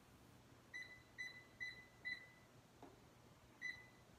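Life Fitness exercise machine console beeping as its keypad buttons are pressed to enter workout settings. There are five short, high beeps: four about half a second apart, then one more a second and a half later.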